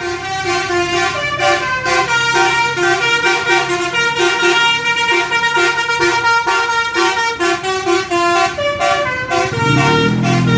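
Indonesian 'telolet' bus horn, a multi-trumpet musical air horn, playing a quick melody of short notes that repeat in a steady rhythm. Near the end a lower tone that swoops up and down joins it.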